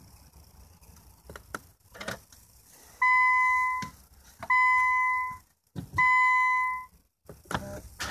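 Nissan Fuga's in-cabin warning buzzer giving three steady single-pitched beeps, each just under a second long, about 1.5 s apart, as the push-button ignition is switched to ACC and ON with the driver's door open. A few soft clicks of the start button and switchgear come before and after the beeps.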